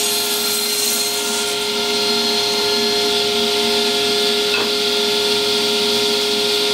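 Shop power tool running steadily, a constant motor hum with a hiss on top, as a piece of wood is worked against it. A light click about four and a half seconds in.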